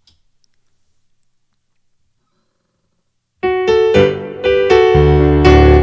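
Near silence, then a digital piano starts playing a hymn introduction about three and a half seconds in, with low bass notes joining about a second and a half later.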